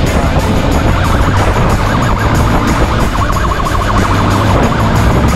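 Police siren warbling rapidly up and down over the steady low running of a motorcycle engine.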